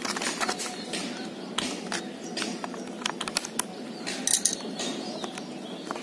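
Hard plastic blister pack with a cardboard backing being handled and worked open: irregular crinkling, sharp clicks and taps, over a steady background noise.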